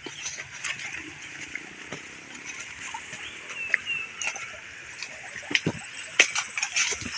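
Footsteps crunching and brushing on a forest trail, irregular knocks and scuffs, with a few short high bird chirps a little over three and a half seconds in.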